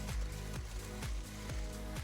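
Background electronic dance music with a steady beat: a deep kick drum about twice a second under sustained synth tones.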